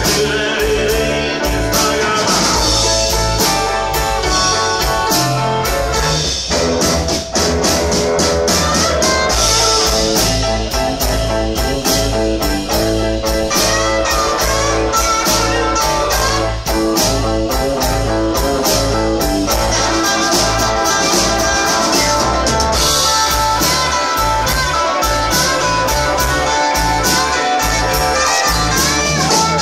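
Live blues band playing: electric guitar, keyboard and drums, with a steady drum beat.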